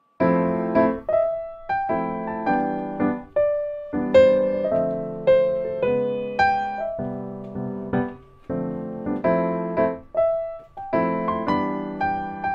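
Background piano music: a slow run of struck notes and chords, each fading away after it is played.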